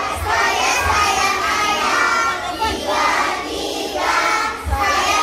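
A group of young children singing together in unison, loud and continuous.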